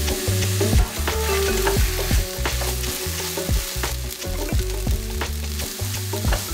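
Sliced onions sizzling in a frying pan, stirred with a wooden spatula that knocks and scrapes against the pan many times.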